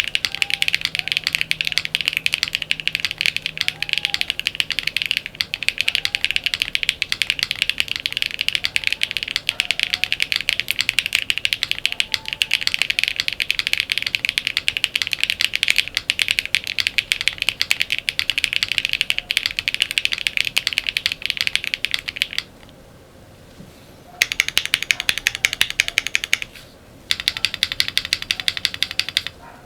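Fast typing on a Space82 gasket-mounted mechanical keyboard with an FR4 plate, foam-dampened, HMX Emo switches and PBTFans Neon PBT keycaps: a continuous run of crisp keystrokes. It breaks off for a moment about 22 seconds in and again shortly before the end, with more evenly paced keystrokes between the pauses.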